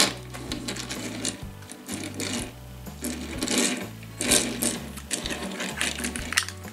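Small toy car rolled back and forth on a tabletop, its wheels rattling in several short runs. Background music with a steady bass line plays underneath.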